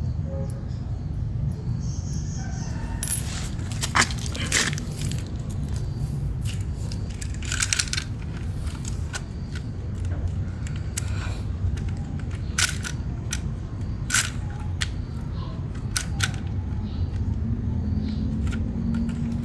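Small electric motors of RC model construction vehicles humming low and steady, with scattered sharp clicks and clinks of small hard objects knocking together, the loudest about four seconds in.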